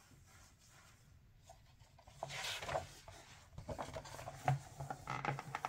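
A book page being turned by gloved hands: paper rustling and sliding, then a string of small crinkles and taps, starting about two seconds in.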